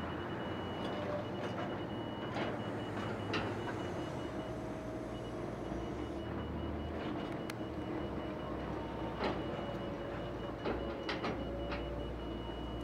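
Diesel engines of a Kobelco excavator digging and a Volvo loader working, running steadily, with a thin high tone pulsing through most of it. Several sharp knocks of metal on metal are scattered through, a cluster of them near the end.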